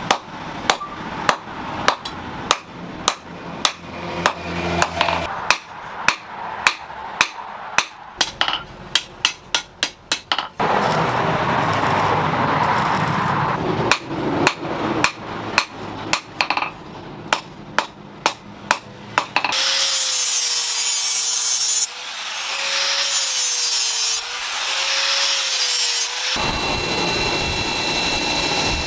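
Hammer blows on steel, about two a second, then stretches of rasping, grinding noise broken by more blows. Later comes a long steady high-pitched machine noise with a wavering tone in it, ending in a steady noise with thin high tones.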